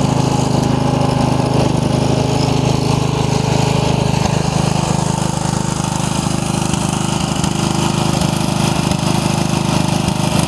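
A 15-horsepower OHV Briggs & Stratton single-cylinder engine on a 1990 Craftsman riding mower, running steadily.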